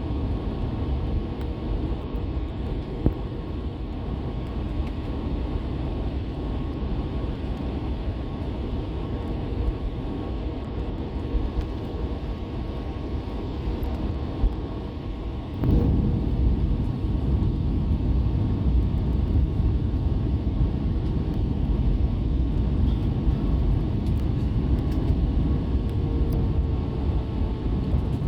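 Airbus A320 cabin noise: a steady rumble of engines and airflow with faint steady tones. About halfway through, a sudden jolt is followed by a much louder low rumble, the sound of the main wheels touching down and the aircraft rolling out on the runway.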